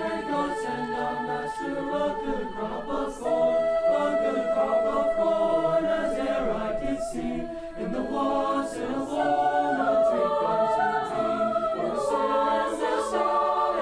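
A choir singing in harmony, holding long sustained chords that shift every few seconds.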